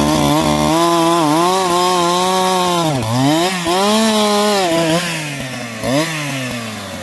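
Two-stroke chainsaw running at high revs while cutting wood, its pitch dipping sharply and recovering twice, about three and six seconds in, as the chain bites into the cut. It gets a little quieter near the end.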